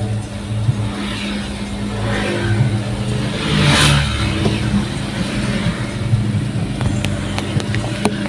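Road vehicle engine running steadily, with a rush of noise that swells and fades about four seconds in, as of a vehicle passing close by.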